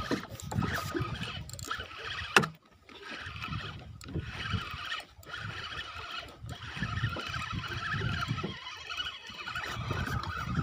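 Spinning reel being cranked to wind in a hooked fish, a steady whirring from its gears over a low, uneven rumble, with one sharp click about two and a half seconds in.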